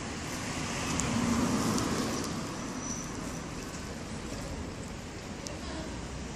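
Street traffic noise, swelling briefly about a second in as if a vehicle passes, with a few faint sharp clicks.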